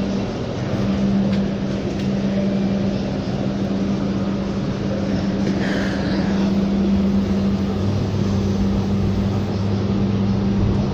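Cabin noise inside a Bombardier Flexity streetcar: a steady hum over an even rumble, with a second, lower hum joining about eight seconds in.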